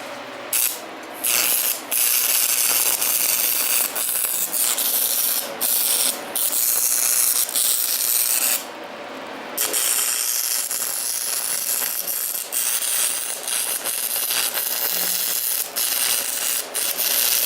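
Arc of a small 110-volt stick welder crackling and hissing, in a string of bursts: the arc goes out and is struck again several times, with short gaps between.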